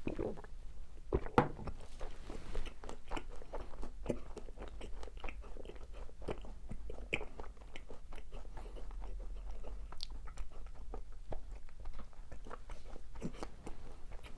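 Close-miked eating of a macaron: a crunchy bite through the shell about a second in, then steady chewing with many small crackles.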